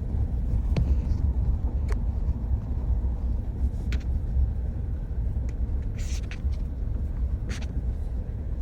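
Car driving slowly, a steady low road-and-engine rumble with a few short sharp clicks or knocks scattered through it.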